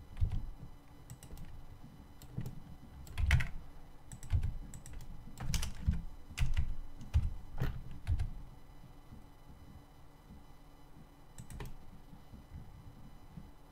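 Computer keyboard keys being pressed in irregular, scattered keystrokes, each a sharp click with a low thud, bunched in the middle and sparse near the end: keyboard shortcuts being entered while working in 3D software.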